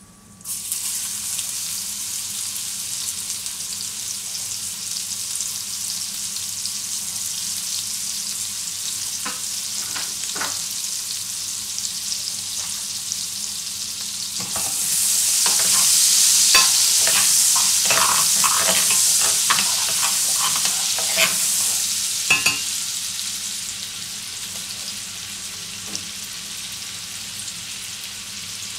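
Fat and meat drippings sizzling in a stainless steel frying pan. About halfway through, chopped onion goes in and the sizzle grows louder, with scattered clicks and taps, before settling to a softer sizzle.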